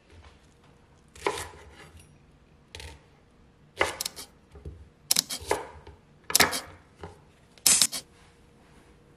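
Kitchen knife cutting through leeks onto a wooden cutting board: a series of separate sharp chops, irregularly spaced.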